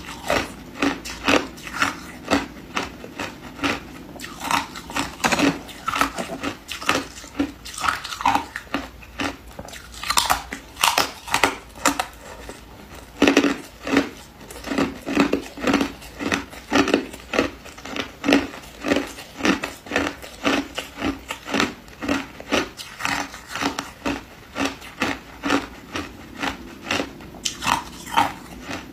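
Ice being crunched and chewed between the teeth close to the microphone: a steady run of sharp crunches, about two or three a second.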